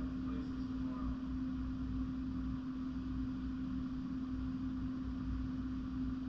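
Steady droning hum: one constant low tone over an even low rumble, with no change in pitch or level.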